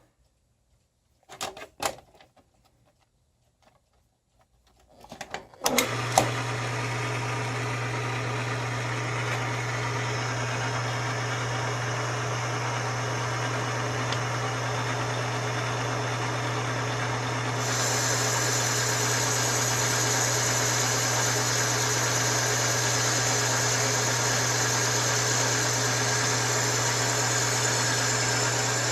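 A few clicks, then the Myford lathe starts up about six seconds in and runs with a steady hum. About eighteen seconds in, a bright hiss joins it as the carbide tool bit begins a final cut into the cast iron piston ring blank.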